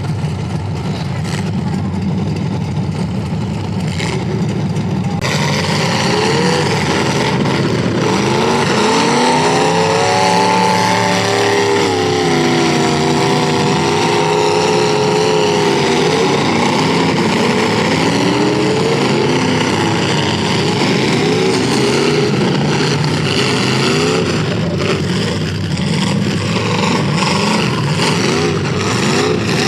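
Several full-size demolition derby cars' V8 engines running and revving up and down over one another, the pitches rising and falling out of step. It gets louder and fuller about five seconds in.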